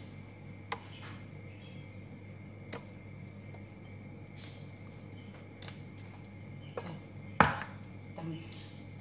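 Scattered light clicks and taps of food being handled by hand at a kitchen counter, with one louder knock about seven and a half seconds in, over a steady low hum.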